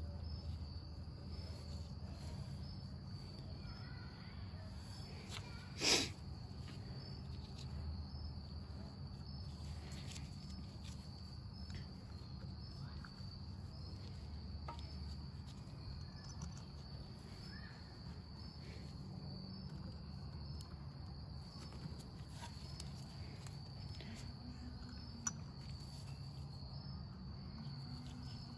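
Crickets chirping steadily over a low hum. There is one sharp click about six seconds in and a faint tick near the end.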